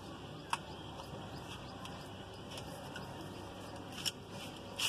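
Hands smearing masala paste onto a whole fish on a steel plate: a steady faint hiss with a few sharp clicks of fingers and fish against the metal plate, once about half a second in, again just after four seconds, and loudest at the very end.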